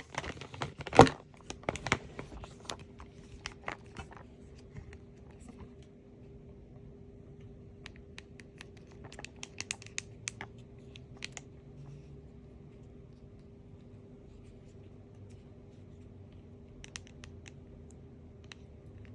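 Hands handling and opening toy packaging: sharp taps, clicks and crinkles of cardboard and plastic, densest and loudest in the first few seconds, with a few more clusters of clicks later. A faint steady hum runs underneath.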